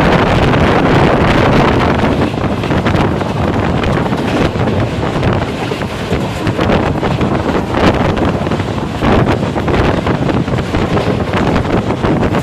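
Express train running through a station at full speed, with heavy wind noise on the microphone over the steady rumble.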